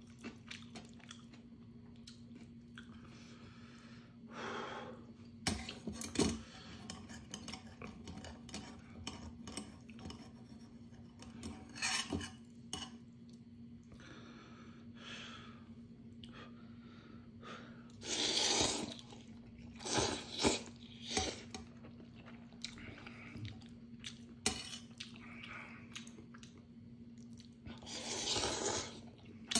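Eating Neoguri instant ramyeon: noodles slurped in several loud bursts, around 4 seconds in, at about 18 to 21 seconds and again near the end, with chewing and metal chopsticks and spoon clicking against a stainless steel bowl in between. A faint steady hum runs underneath.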